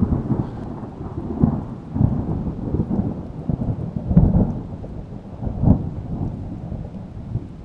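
Steady rain with deep thunder rolling beneath it, the rumble swelling and fading several times.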